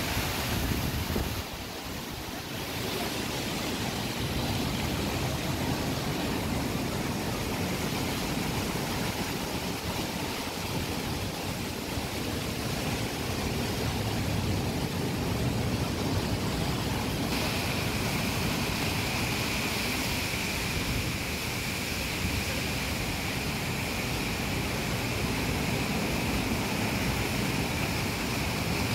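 Indoor rain waterfall: a thick column of water falling from the ceiling and crashing steadily into the pool below, a continuous rushing splash.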